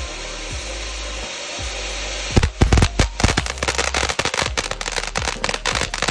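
Consumer fireworks fountain hissing, then from about two and a half seconds in crackling with a rapid, irregular string of loud pops.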